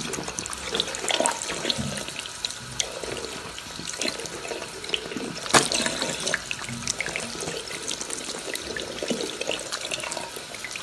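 Thin stream of water running from a bathroom sink tap into the basin, splashing unevenly with many small ticks as a cat drinks from and paws at the stream.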